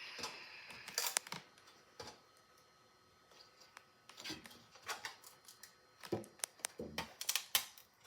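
Scattered clicks and short scrapes of 3D-printed plastic knife parts being handled and worked loose, with a busy run of clicks near the end.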